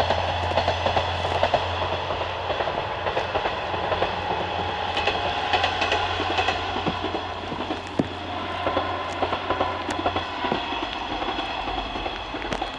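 A train passing close by, its wheels clattering over the rail joints with a run of short clicks. A steady low hum fades out about ten seconds in.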